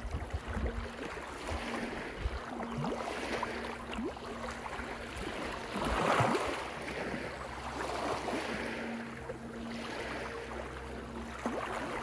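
Small ocean waves breaking and washing over a rocky shore in repeated surges. The biggest wave breaks about six seconds in.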